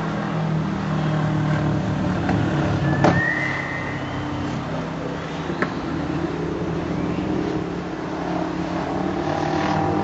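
Steady hum of a motor vehicle engine, with a sharp click and a short high whistle about three seconds in.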